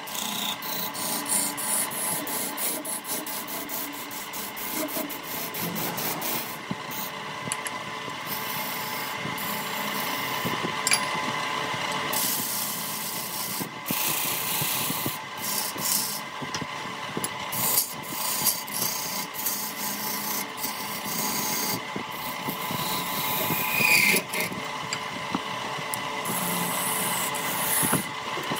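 Wood being worked on a lathe: a tool rubbing and scraping against the spinning wood over a steady hum, with a run of quick ticks and scrapes in the first several seconds.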